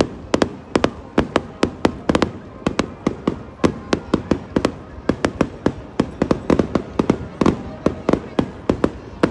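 Fireworks display: a rapid, continuous barrage of sharp bangs from exploding shells, several a second, each ringing out briefly.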